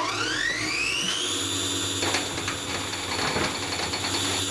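Electric power tool motor spinning up, its whine rising for about a second before it settles to a steady pitch and runs on.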